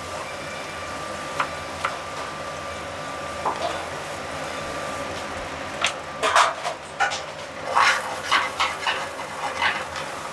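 Restaurant kitchen clatter: sharp knocks and clanks of a knife, board and pan in a quick run during the second half, over the steady hum of the kitchen's ventilation.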